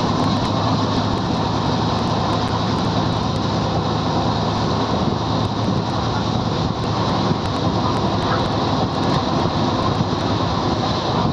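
Steady running noise of an LHB passenger train coach travelling at about 100 km/h, heard from inside the coach, with a low steady hum under it.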